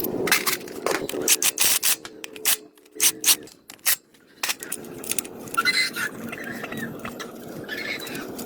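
Hand work on a car body: a quick run of sharp clicks and knocks, then rough scraping or rubbing for the rest of the time.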